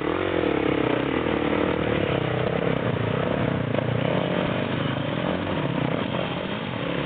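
Dirt bike engine running, its revs rising and falling unevenly as the bike is ridden through a river crossing.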